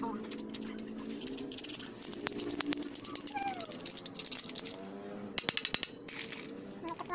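Screwdriver and small metal parts clicking and rattling against a carburetor body as it is taken apart by hand: a string of sharp, irregular clinks.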